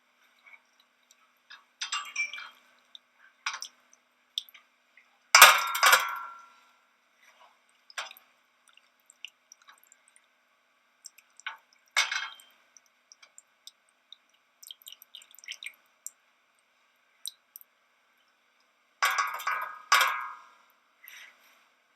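Metal kitchen utensils and a pan clanking and clinking as fried potatoes and onions are drained of oil and moved to a plate. The knocks are scattered, with two louder ringing clangs, one about five seconds in and a pair near the end.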